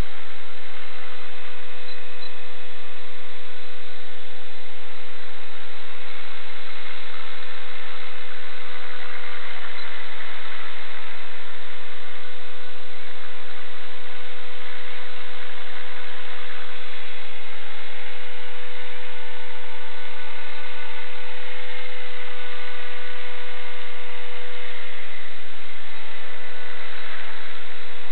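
Electric motor and rotor of an EXI-450 RC helicopter running at a steady speed: an even, high whine with one strong tone and slightly wavering higher tones over a rushing noise.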